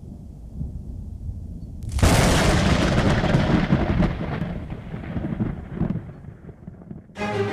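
Thunder sound effect: a low rumble building, then a loud crack about two seconds in that rolls away and fades over several seconds. Music starts near the end.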